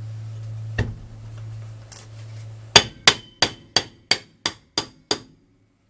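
Hammer striking metal while tapping the rear wheel bearing into place: one blow, then a run of about eight quick ringing taps, roughly three a second. A steady low hum underneath stops as the run of taps begins.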